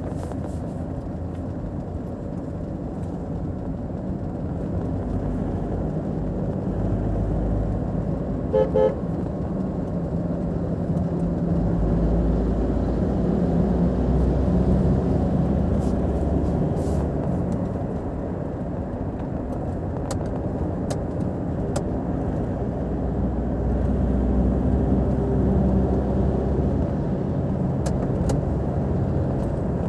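Car driving at speed on a highway: steady engine and tyre road noise that swells and eases. About nine seconds in, a car horn gives two quick toots.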